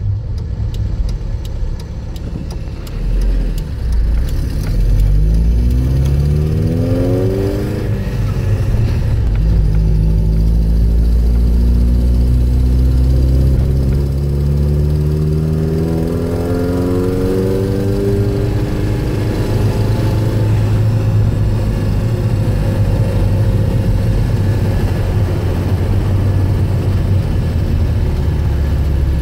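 Toyota 22R-E four-cylinder engine pulling under load, with a deep rumble. Its pitch climbs twice with a drop between, like an upshift, then holds steady. This is the load condition in which the owner hears a fluttering sound from the engine.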